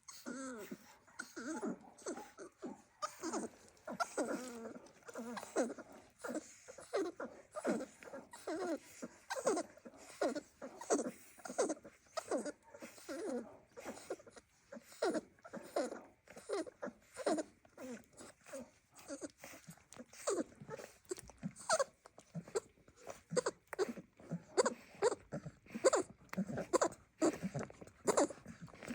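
Dogs whining and whimpering in a rapid run of short, high, wavering calls, several a second without let-up. It is excited, happy whining, called "the sound of happiness".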